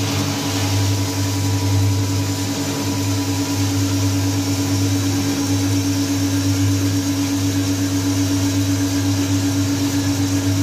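Small drum coffee roaster running with a steady motor and fan hum, while roasted coffee beans pour out of the drum into the stirred cooling tray with a continuous rattling hiss: the roast being dropped at its end.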